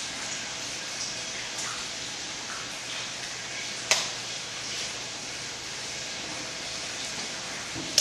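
Steady hiss of background noise, broken by a sharp click about four seconds in and another right at the end.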